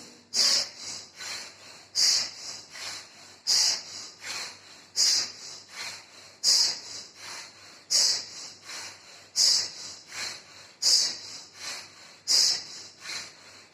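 A man doing forceful bhastrika breaths through the nose, one nostril at a time. The breaths come as sharp, hissing rushes of air in a steady rhythm, a strong one about every one and a half seconds with a weaker one between.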